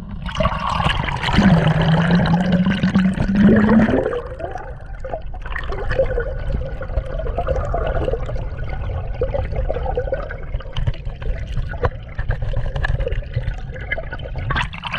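Lake water sloshing and gurgling around an action camera as it is dipped under the surface, loudest in the first few seconds, then a steady muffled underwater rumble.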